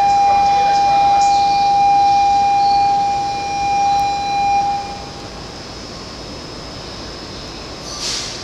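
A single long, steady, loud tone sounds for about five seconds and then stops, while a Keikyu train rolls into the platform. A short hiss comes near the end.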